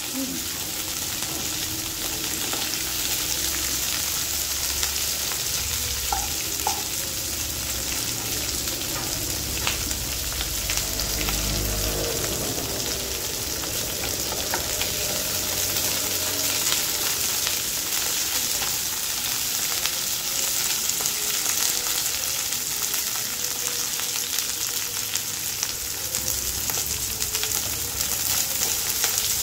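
Onions, green capsicum and red chillies sizzling in hot oil in a non-stick pan, lightly fried. A wooden spatula stirs them now and then, with small scraping clicks against the pan over the steady hiss.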